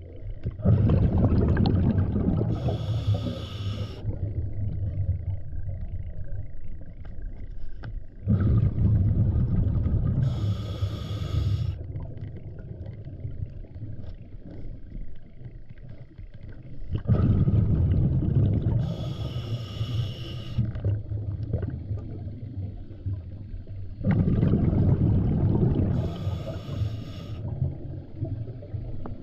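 A scuba diver breathing through a regulator underwater: four breaths about seven seconds apart. Each is a loud rumble of exhaled bubbles that starts suddenly, with a brief higher hiss from the regulator a second or two in.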